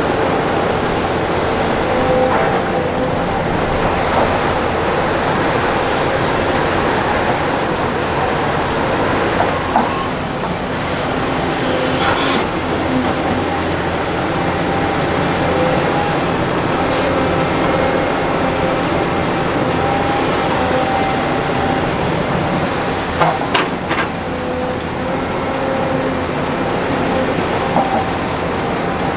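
Hydraulic excavators working: a steady diesel engine rumble with a hydraulic whine that comes and goes, and a few sharp knocks.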